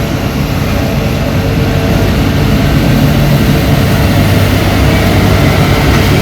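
Street sweeper running, its engine drone mixed with the steady scraping hiss of its rotating brushes on the road surface, getting a little louder about two seconds in.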